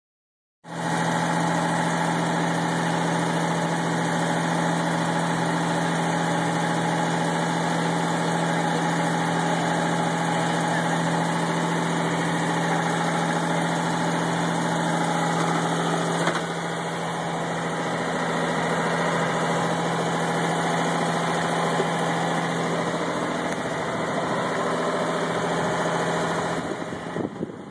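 Sailboat's auxiliary engine running steadily under way, heard loud from inside the cabin, a constant hum with a strong low pitch. It grows quieter and uneven near the end.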